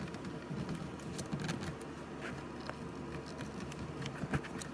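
Faint handling noise: scattered small clicks and taps as the plasma cutter's parts are plugged back in.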